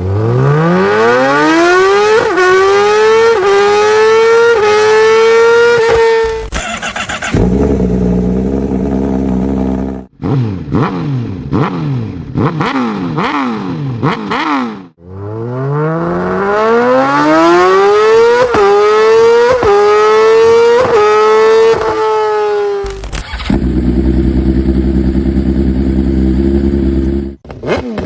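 Superbike engines with loud exhausts. Twice a bike accelerates hard, its engine note climbing and dropping briefly at each quick upshift about four times. In between come a run of sharp throttle blips and two stretches of steady low-pitched running.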